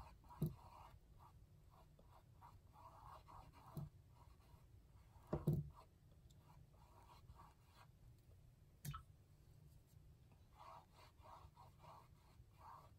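Faint, soft scratchy strokes of a paintbrush working paint onto a canvas, in short clusters, with a few light knocks, the loudest about five and a half seconds in.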